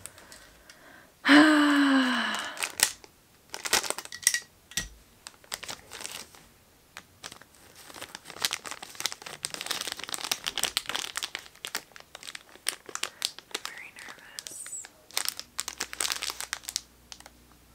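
Shiny black plastic blind-bag wrapper crinkling and tearing as it is opened and a mystery key is worked out of it: many rapid, irregular crackles. A short hum with a falling pitch about a second and a half in.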